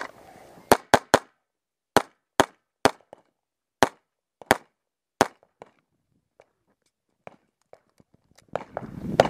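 Springfield Armory XDm 5.25 Competition pistol firing nine shots in three quick strings of three over about four and a half seconds, three shots per target. Then a few faint knocks, and a louder jumble of knocks near the end.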